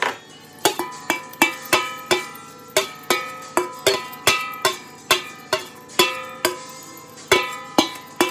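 Background music: a plucked-string melody played one note at a time, each note ringing and fading, about two to three notes a second.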